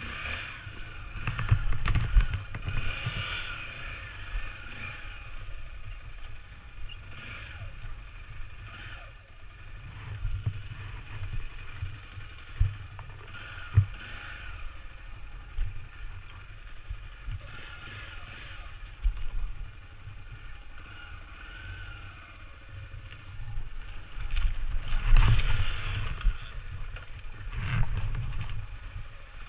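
Dirt bike engine running at low revs, with throttle swells every few seconds and the biggest one near the end, over a heavy low rumble.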